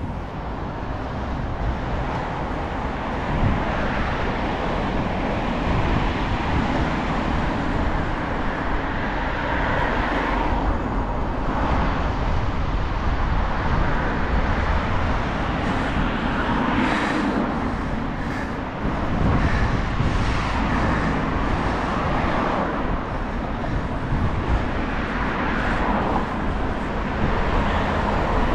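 Road traffic on a busy city street: a steady rumble of cars passing, swelling and fading as individual vehicles go by.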